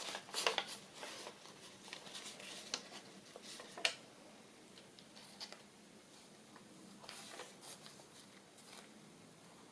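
Paper ephemera being handled and slid into a paper journal pocket: light rustling with several short taps and scrapes in the first few seconds, then quieter, sparser handling.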